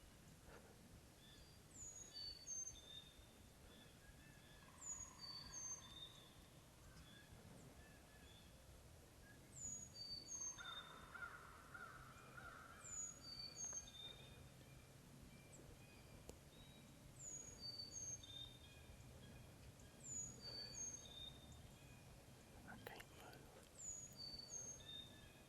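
A wild turkey gobbler gobbling faintly, loudest about ten seconds in, with weaker calls earlier and near the end. Over it a songbird repeats a short high phrase every couple of seconds.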